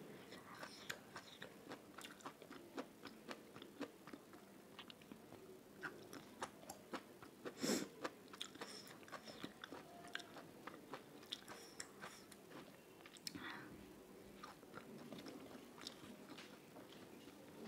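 Close-miked chewing and mouth sounds of a person eating rice and side dishes by hand: soft wet clicks and crunches, with one louder click about eight seconds in.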